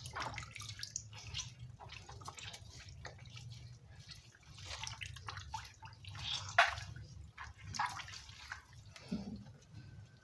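Raw beef tripe being squeezed and dunked in a plastic basin of water: water splashes and drips and trickles back into the basin in irregular bursts, the loudest splash about six and a half seconds in.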